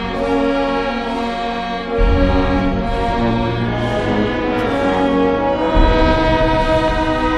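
Brass band playing a slow funeral march in long held chords, with deep bass strikes about two seconds in and again near the end.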